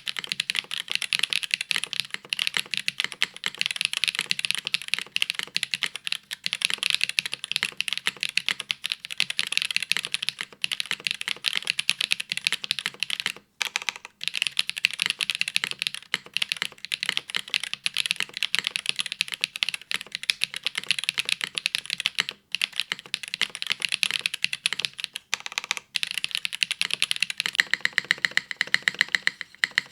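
Continuous typing on a Gehirn TKL custom mechanical keyboard with WINGTREE Nezuko linear switches (55 g, dry), an aluminium plate, top mount, no foam and GMK keycaps: a steady run of keystroke clacks, broken by a few brief pauses.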